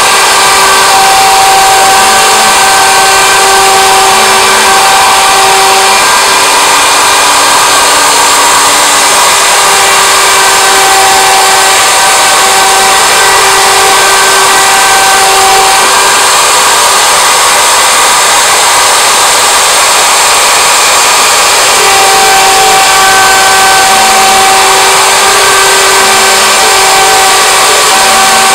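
Router spindle of a homemade CNC machine running at high speed, a steady whine and hiss as its bit cuts grooves into a wooden board. Lower motor tones switch on and off every few seconds as the cutting head moves along the pattern.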